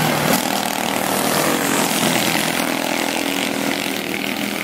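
Quarter midget race cars' small engines running at speed around the track, a steady buzzing drone that is a little louder at the start as a car passes close.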